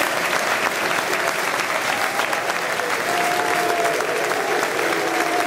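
Football crowd applauding, a dense steady clapping with voices mixed in; a long held high note rises above it about three seconds in.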